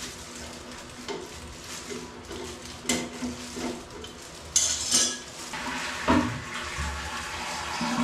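Metal clinks and clicks of pliers and fittings as a toilet's wall angle valve is loosened and unscrewed, with the sharpest clicks about four and a half to five seconds in and a heavier knock about six seconds in.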